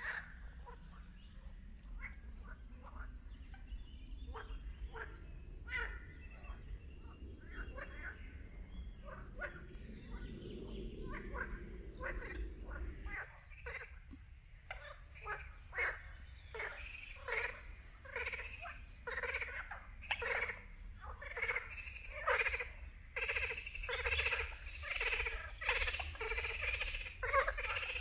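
A chorus of pond frogs croaking, short calls repeated in quick succession, sparse at first and becoming a dense, louder chorus about halfway through.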